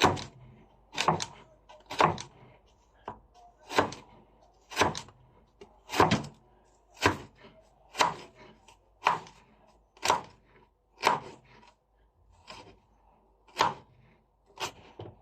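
Knife slicing a carrot thinly on a cutting board, one slice at a time: short, sharp chops at a steady pace of about one a second.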